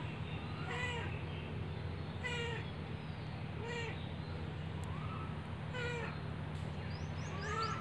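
A cat meowing: five short, high, arched meows about a second and a half apart, over a steady low hum.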